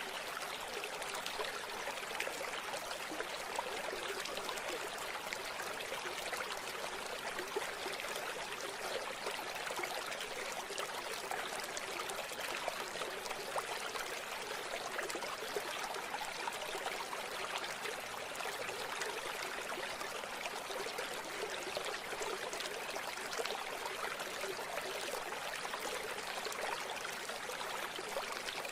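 Small river or stream flowing and trickling over rocks, a steady splashing rush with no change in level.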